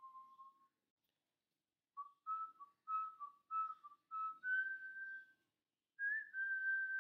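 A tune whistled by a person: a brief note, a pause of about a second, then a run of short notes from about two seconds in, ending in longer held higher notes.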